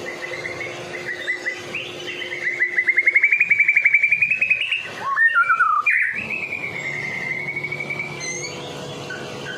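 White-rumped shama (murai batu) in full song: a fast trill of repeated notes that rises and swells, then a few quick falling notes and a long wavering whistled phrase.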